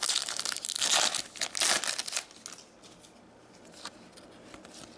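Foil hockey-card pack wrapper being torn open and crinkled by hand, a crackling rustle for about two seconds. After that it goes quiet but for a few faint ticks as the cards are handled.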